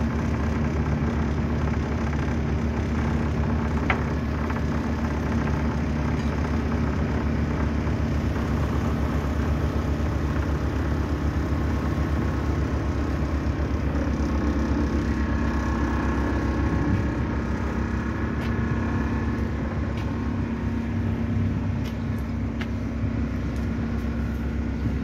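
Excursion boat's engine running with a steady low drone, heard from on board.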